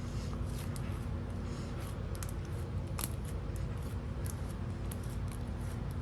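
Slime mixed with sprinkles being squished and worked by hand, giving irregular small clicks and crackles with a sharper snap about three seconds in, over a steady low hum.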